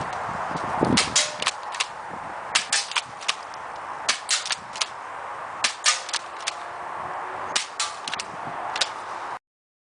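Double Eagle M56A spring-powered airsoft shotgun being worked and fired over and over: sharp snaps and clicks in five quick clusters, about one cluster every second and a half.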